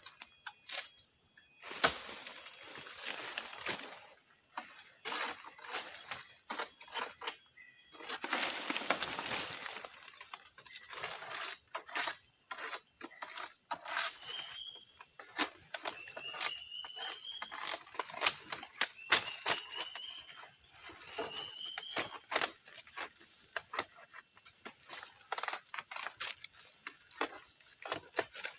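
Steady high-pitched chorus of forest insects, over many scattered sharp clicks and knocks and a stretch of rustling. Near the middle, four short rising whistled calls.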